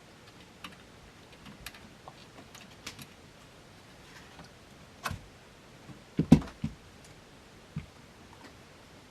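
Plastic front panel of a Roland Fantom XR being worked loose and pulled off by hand: scattered small clicks and taps, with a few louder knocks about five and six seconds in.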